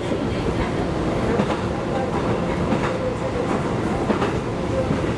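JR 211 series 3000-subseries electric train running on the rails: a steady rumble of wheels on track, with occasional faint clicks over rail joints.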